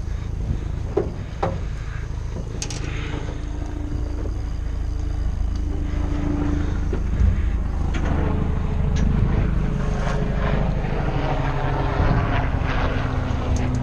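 Party fishing boat's engine running with a steady low hum, with a few scattered clicks and knocks.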